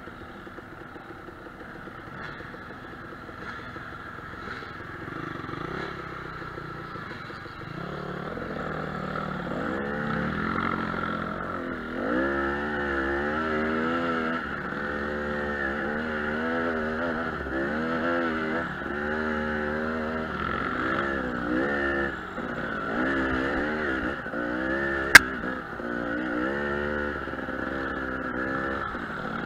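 KTM 300 two-stroke dirt bike engine, heard from on the bike, running low at first, then from about ten seconds in revving up and down over and over as the throttle is worked on the rough trail. A single sharp knock comes near the end.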